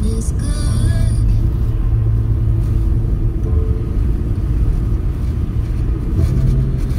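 Steady low rumble of a car being driven, heard from inside the cabin: engine hum and road noise.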